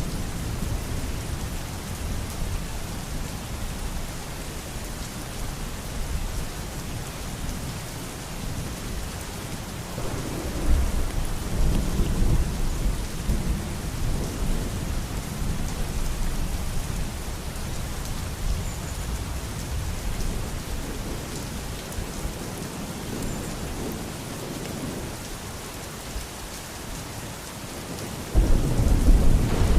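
Steady rain falling with thunder rumbling; a low rumble swells about a third of the way in, and a louder one breaks in suddenly near the end.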